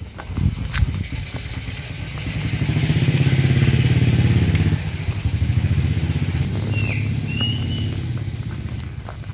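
A motorcycle engine running close by, swelling to its loudest around three to four seconds in and then easing off. Two short high chirps sound about seven seconds in.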